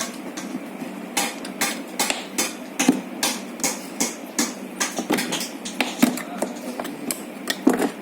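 Screwdriver prying the plastic forward/reverse switch out of a children's 12V ride-on car's body: a run of sharp clicks and knocks, about two or three a second, starting about a second in.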